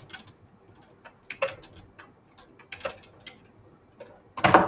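Dry-erase marker tapping on a whiteboard as a graph is drawn: a dozen or so short, separate ticks at uneven spacing, with one louder knock near the end.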